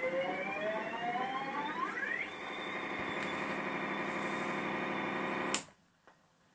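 Synthesizer sound from a Korg Monotron Delay and Volca FM: a tone glides upward in pitch for about two seconds, then settles into a steady high-pitched drone over a dense cluster of tones, which cuts off suddenly with a click about five and a half seconds in.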